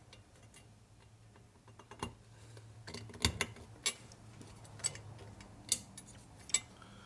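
Sharp metallic clicks and taps, about seven of them spread unevenly over several seconds, as a steel snap ring is worked into its groove in an aluminium motorcycle crankcase, over a low steady hum.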